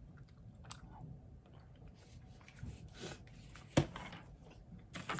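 Small handling noises: soft rustles and light taps, with one sharp click about four seconds in.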